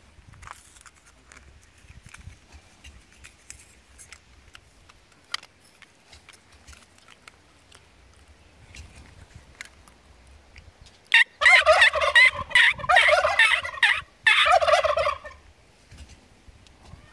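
Tom turkeys gobbling. A loud burst of rapid, warbling gobbles starts about eleven seconds in and lasts around three seconds, and a shorter gobble follows after a brief break. Before that there is only a faint low rumble and scattered ticks.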